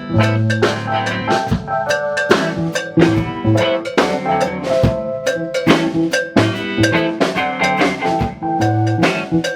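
Rock music: a drum kit playing a steady beat with snare and bass drum hits, over held bass and guitar notes.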